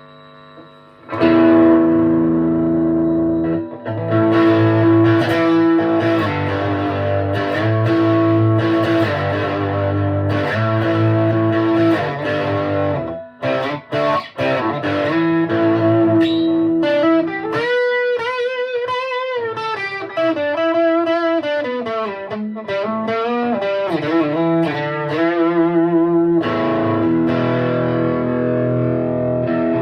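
Electric guitar played through an amp on a high-gain, distorted setting: sustained and chugging chords, a brief break about halfway, then a single-note lead line with bends and vibrato before the chords return.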